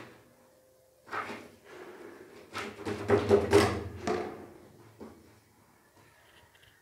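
Plastic drain-pipe fittings being handled on a concrete floor: hard plastic scraping and knocking. There is a short scrape about a second in, a loud run of knocks and scrapes around three to four seconds in, and a fainter knock near five seconds.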